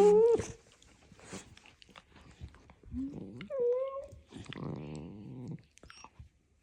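Miniature dachshunds vocalizing: a short yelp at the start, a higher whine about three and a half seconds in, and a low growl around five seconds, with scattered clicks in between.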